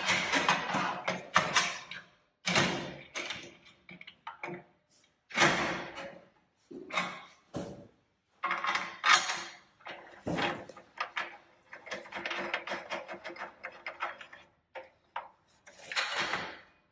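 Aluminium measuring guide bar being slid into place and locked on a Sigma Serie 4 manual tile cutter: metal scraping, clicking and rattling in short bursts, with a brief pause about eight seconds in.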